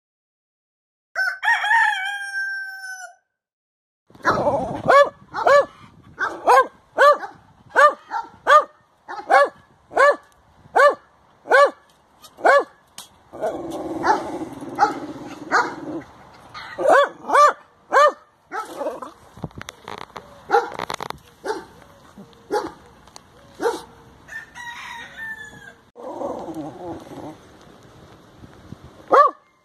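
A rooster crows once. Then a small terrier barks over and over at a rat held up in a wire cage trap, one or two barks a second at first, more scattered later.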